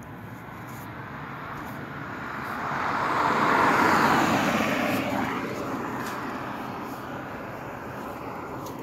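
A vehicle passing by: a steady rushing noise that swells about three seconds in, then fades away, its pitch dropping slightly as it goes.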